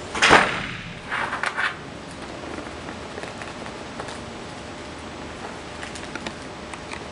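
Paper handling at a desk: a loud rustle just after the start and a quick run of crackles about a second in, then faint ticks of a pen on paper over a steady hiss.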